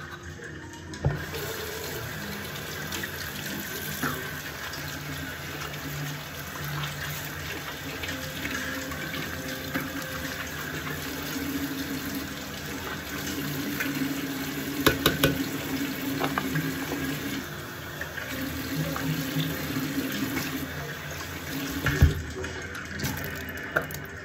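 Bathroom sink tap turned on about a second in and left running into the basin, stopping near the end. A few sharp knocks and clicks around the sink come through midway and again shortly before the water stops.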